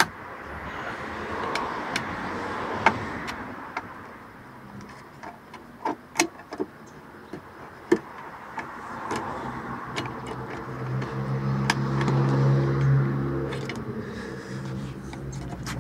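Scattered sharp clicks and taps of a ruler being worked into the gap of a car's fuel filler door and knocking against the door and body panel, over a noisy background. Near the end a steady low hum swells and fades.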